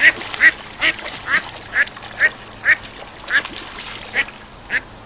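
Hen duck giving a rapid series of harsh quacks, about two a second, in alarm as a pike seizes her duckling. Water splashing at the start as she thrashes in the shallows.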